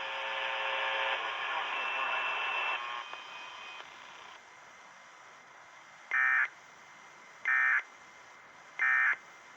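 Emergency Alert System end-of-message signal: three identical short bursts of shrill digital data tones, evenly spaced about a second and a half apart. Before them, a steady buzz of several tones runs for about three seconds and fades out.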